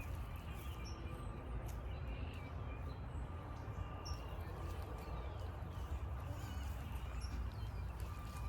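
Scattered short, high bird chirps over a steady low rumble and a faint steady tone.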